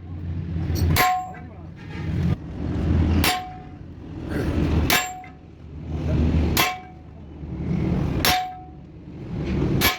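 Hammer striking steel six times, about one blow every one and a half seconds, each blow leaving a short metallic ring. A low rumble swells and fades between the blows.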